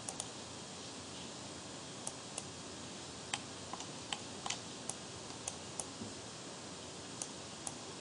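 Irregular sharp clicks of a computer mouse and keyboard, some fifteen of them, over a steady faint hiss.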